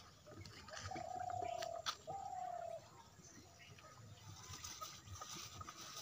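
A bird calling twice, two drawn-out, slightly falling whistled notes about a second in. Behind them, scattered crackling of dry twigs and leaves as the cattle nose through the brush pile.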